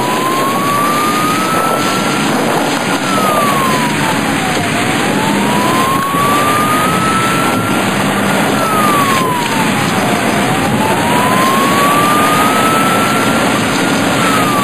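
Police car siren wailing, its single tone rising slowly and dropping back quickly, three full cycles about every five and a half seconds, over a steady rushing noise.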